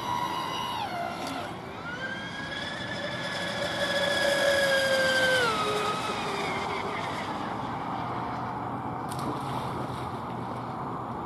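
Radio-controlled electric speedboat's motor whining at speed, over the hiss of spray. The whine drops about a second in, climbs back and holds, loudest just before it falls again in steps around five to six seconds in.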